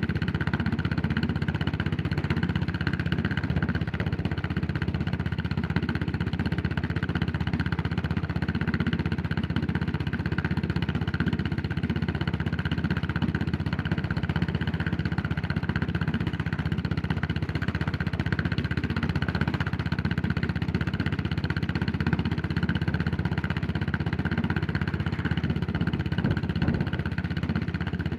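Yamaha SR400's air-cooled single-cylinder four-stroke engine running steadily at an even pace, with no revving up or down.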